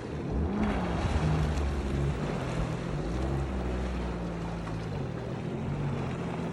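Motorboat engine running at a low idle, a steady low rumble, with wind buffeting the microphone and water noise.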